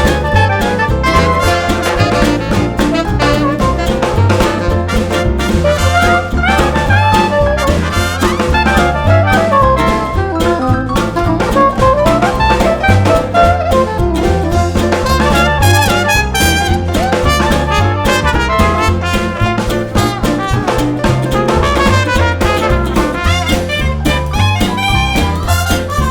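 Swing-style jazz music with brass and a drum kit keeping a steady beat.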